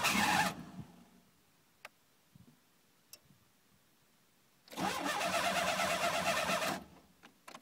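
Car engine cranking on the starter for about two seconds without firing, with a short burst of sound right at the start. It is a no-start that the owner puts down to a bad fuel pump not getting power.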